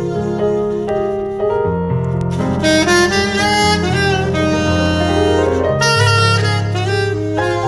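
Soprano saxophone playing a melody over keyboard accompaniment with long sustained low chords.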